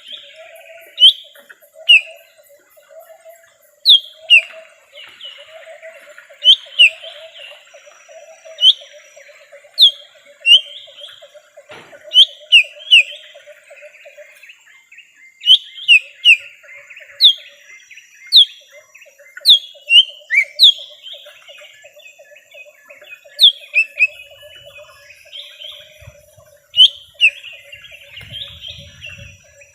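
Lesser green leafbird (cucak ijo mini) calling: loud, sharp down-slurred whistled notes, singly and in quick pairs, about once a second, over softer twittering. A steady low buzzing trill runs underneath, breaking off for a moment about halfway through.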